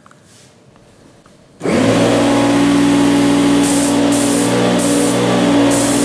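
A small canister vacuum cleaner switches on abruptly about a second and a half in and runs loudly and steadily. It makes a steady motor hum, with a high hiss that cuts in and out.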